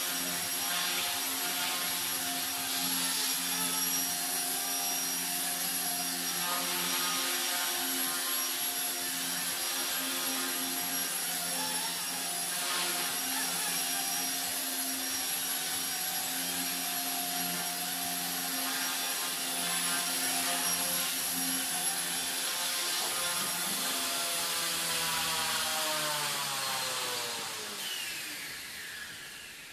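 Blade mCP X brushless micro RC helicopter in flight, its rotor and motor giving a steady high whine and buzz. Near the end it lands and the rotors spool down, the pitch sliding lower as the sound fades out.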